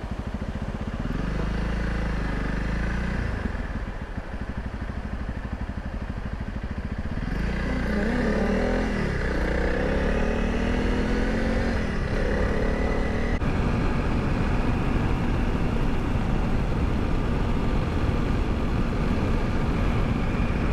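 Honda CRF300L Rally's single-cylinder engine pulling away and accelerating, its pitch rising through the gears about halfway through. It then settles to a steady run at road speed, with wind noise.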